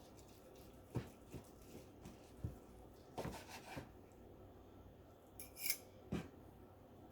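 Faint kitchen cutting sounds as a cooked, stuffed chicken breast is cut up: a few soft clicks and knocks of the blade, a brief rustling cut, and a short high scrape of metal near the end.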